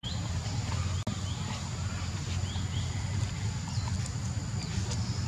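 Outdoor forest ambience: a steady low rumble under a constant high-pitched whine, with short faint chirps scattered through it. The sound cuts out for an instant about a second in.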